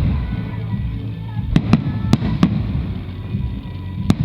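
Aerial fireworks bursting: several sharp bangs at irregular intervals over a continuous low rumble from the show, with music playing underneath.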